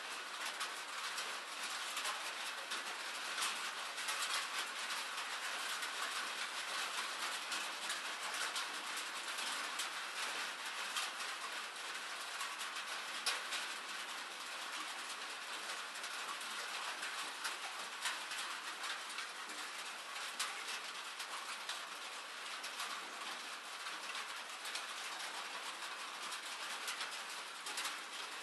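Steady rain: an even hiss with many fine drop ticks pattering throughout.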